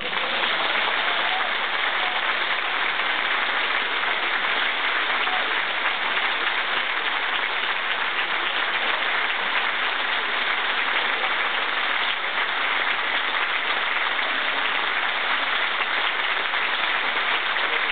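Large audience in a concert hall applauding steadily, a dense, even clapping.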